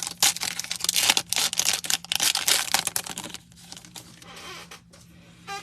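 A trading-card pack wrapper being torn open and crinkled for about three seconds, then a quieter rustle as it dies down.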